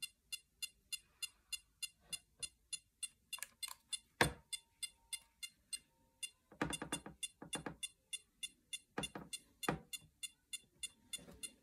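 Hand-held GQ EMF-390 RF meter clicking rapidly and evenly with short high electronic ticks, about three to four a second, while it reads high RF next to a streaming device. One sharp knock sounds about four seconds in, and there is brief handling noise from the meter being moved about.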